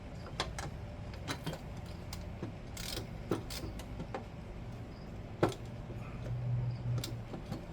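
Scattered light clicks and metallic clinks of small parts and tools being handled, with a brief rustle near three seconds in and a sharper knock about five and a half seconds in.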